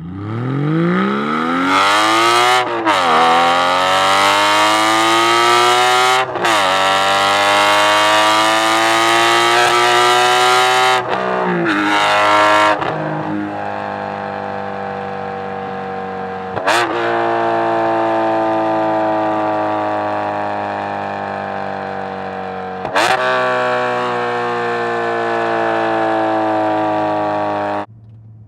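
Porsche 718 Cayman GT4's 4.0-litre flat-six under hard acceleration: the engine note climbs steeply, drops sharply at each upshift and climbs again through several gears. From about halfway it holds and then slowly falls as the car eases off, and it cuts off suddenly near the end.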